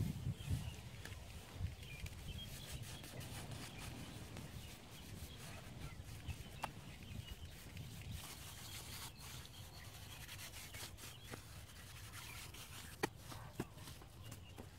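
Faint, continuous rubbing and scraping, with a sharp tap about six and a half seconds in and a louder one near the end.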